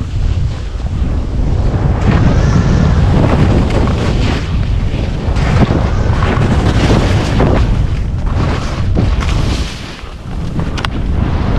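Wind buffeting the microphone of a skier's body-worn camera during an off-piste descent, with skis hissing and scraping through the snow on each turn. The wind rumble eases briefly about ten seconds in.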